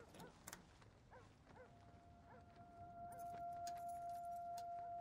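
A steady held tone comes in about a second and a half in and grows louder, over short rising chirps and a few faint clicks.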